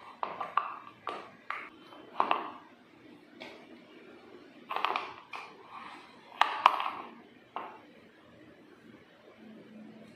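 Metal spoon and idlis knocking against a stainless steel plate as rava idlis are served onto it: an irregular string of sharp clinks, each with a short ring, the loudest about six and a half seconds in.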